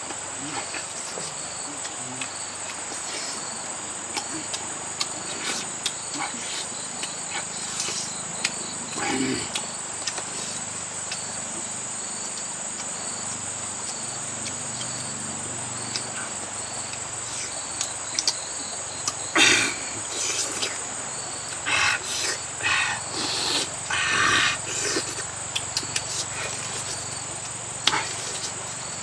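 A steady high-pitched insect chorus, with a man chewing, smacking and biting into a roasted bird. A cluster of louder mouth noises comes about two-thirds of the way through.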